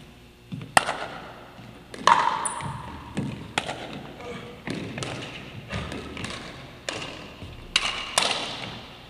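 A pickleball rally: sharp pops of paddles hitting the plastic ball, and the ball bouncing on the wooden floor, about one every second. Each hit rings on in the echoing gym.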